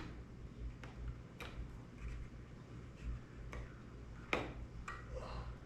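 Scattered light clicks and short scraping strokes, about five, a second or so apart, as old silicone is scraped off the drone by hand.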